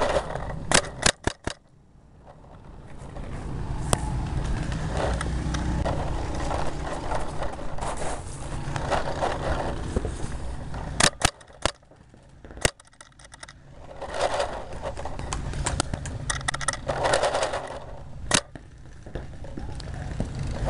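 Paintball marker firing, picked up close by a camera mounted on the gun: a quick volley of about four shots about a second in, a few more shots near the middle and a single shot near the end. Under the shots runs a rumble of handling and wind noise on the microphone.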